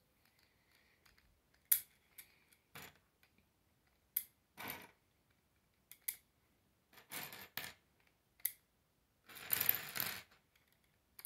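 K'nex plastic parts clicking and scraping as a wheel hub on a rod is pushed into the end of a ridged black roller: scattered sharp clicks with several short scraping rustles, the longest a bit after nine seconds in.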